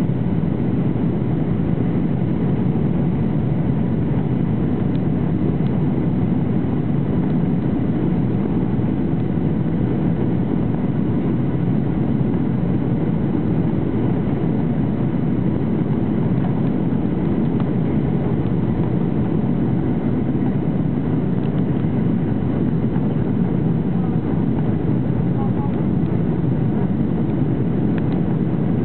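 Steady cabin noise inside a Boeing 737-800 in flight: an even, low rush of airflow and CFM56 turbofan engine noise, unchanging throughout.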